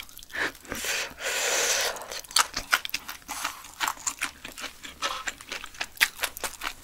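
Close-miked chewing of braised silkworm pupae: wet, irregular clicking mouth sounds. About a second in there is a loud breathy hiss lasting about a second.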